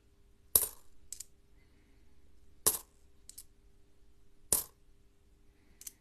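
Australian cupronickel 5-cent coins clinking against each other as they are handled one at a time from a small stack. There are three sharp clinks about two seconds apart, with fainter ticks between them.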